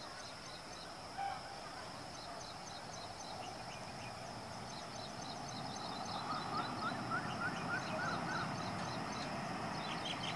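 Birds chirping, with a quick run of repeated chirps midway, over a steady high insect drone. Beneath them a faint rumble slowly grows louder as an electric-hauled express train approaches.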